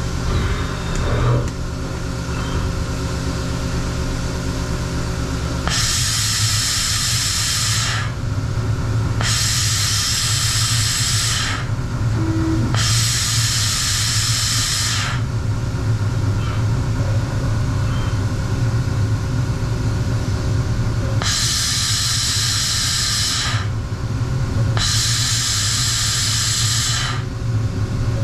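A Star CNC tool and cutter grinder running its probing cycle, with a steady machine hum. Over the hum come five bursts of hiss, each about two seconds long: three in a row starting about six seconds in, then two more near the end.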